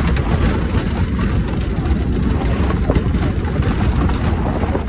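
A 4x4 driving slowly along a rough gravel dirt road: a steady, loud low rumble of engine and tyres, with scattered crackles from the gravel.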